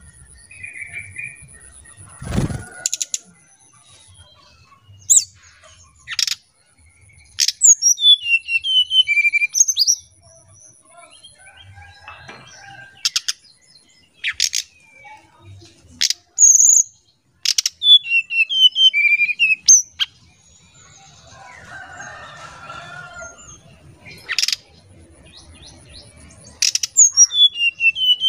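Brown-chested jungle flycatcher singing its flute-like 'nyuling' song: three phrases of quick, falling whistled notes, with sharp clicking call notes scattered between them. A low thump sounds about two and a half seconds in.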